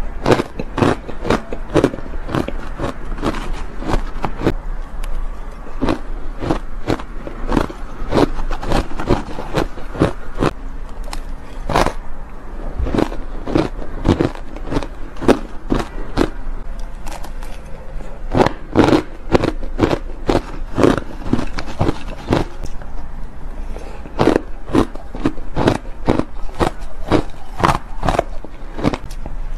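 Frosted ice being bitten and chewed: a dense run of crisp crunches and crackles, several a second.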